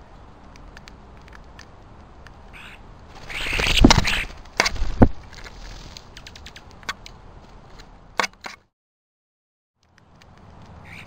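European starlings feeding at a wire-cage suet feeder: small sharp clicks of beaks and claws on the metal cage, with a louder flurry of wing flapping and knocks about three to four seconds in. Near the end the sound cuts out for about a second.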